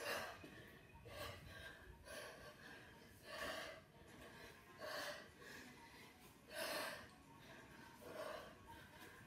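A woman breathing hard through a set of kettlebell cleans: short, sharp breaths about every second and a half, in time with the reps.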